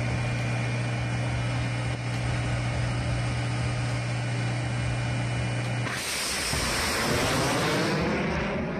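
A tracked surface-to-air missile vehicle running with a steady low hum, then about six seconds in a missile launches with a sudden loud rushing roar that carries on as it climbs away.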